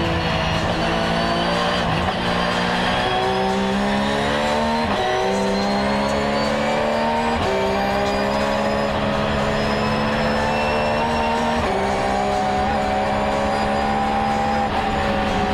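Car engine heard from inside the cabin while driving. Its pitch climbs slowly, drops back several times as gears change, and holds steady while cruising, over a background of road and tyre noise.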